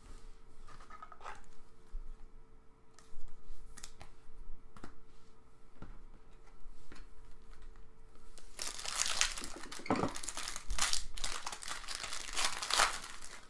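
A few light clicks and taps, then, about eight seconds in, a 2017 Panini Select Football trading-card pack's wrapper crinkles and tears open for about four seconds.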